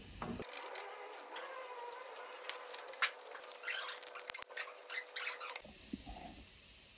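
Piston with ring compressor being fitted into a cylinder bore of an OM 460 engine block: a string of light metallic clicks and scrapes over a faint steady tone, cutting off suddenly about five and a half seconds in.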